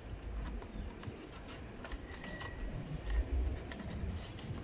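Small cardboard box and white paper packaging being pulled apart and handled by hand, with scattered light rustles and clicks.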